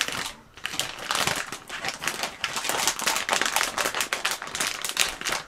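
Soft marshmallow slime being squeezed and pulled by hand, a dense, irregular run of small sticky clicks and pops.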